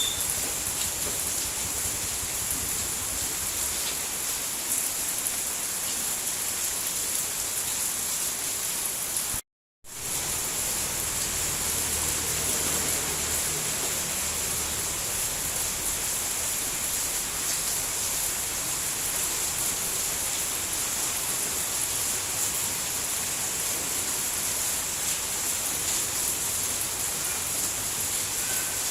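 Steady rain falling, an even hiss strongest in the high end. It cuts out completely for a moment about a third of the way through, then comes straight back.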